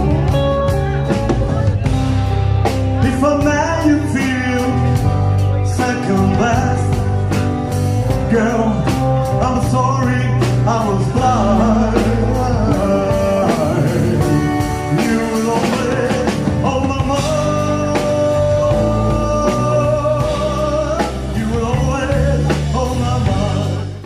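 A rock and roll band playing an instrumental stretch on guitar, bass and drums, with a steady beat. The music cuts off abruptly at the very end.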